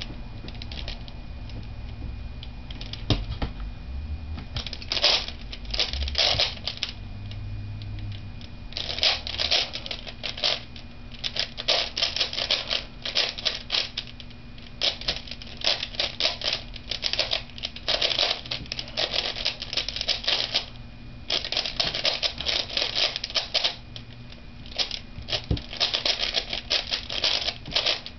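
A 3x3 puzzle cube being turned fast by hand: rapid plastic clicking and clacking of its layers, in quick bursts broken by brief pauses.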